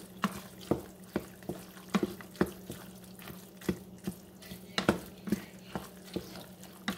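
Wooden spoon stirring elbow macaroni in thick melting cheese and butter in a stainless steel pot. The strokes come about twice a second, a wet squelching with the spoon knocking and scraping against the pot.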